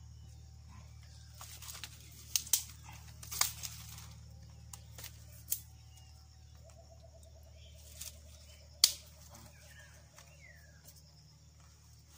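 A handful of sharp clicks and snaps, several close together in the first half and one loud one about nine seconds in, from a lighter being struck and dry kindling twigs being handled to start a fire. A faint rapid trill runs for a few seconds in the middle.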